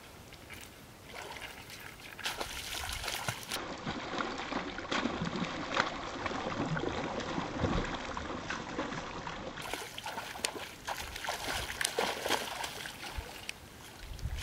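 A hooked catfish thrashing at the surface of a pond, splashing and churning the water in irregular bursts. The splashing builds a second or two in and eases near the end.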